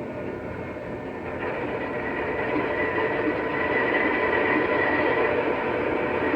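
MTH ES44 model diesel locomotive running on the layout: its Proto-Sound 3 speaker plays diesel engine sound over the rumble of the model on the track. It grows louder from about a second in as the locomotive gets under way.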